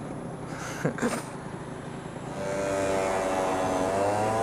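Motorcycle engine ticking over at a standstill with wind on the helmet microphone, two brief thumps about a second in, then the engine note rising and getting louder a little over two seconds in as the bike pulls away.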